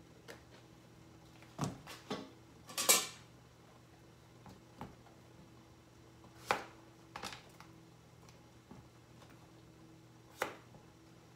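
Covered pan of crab simmering in coconut milk on an electric stove: irregular sharp pops and clicks come from under the glass lid, with one longer sputter about three seconds in. A steady low hum runs underneath.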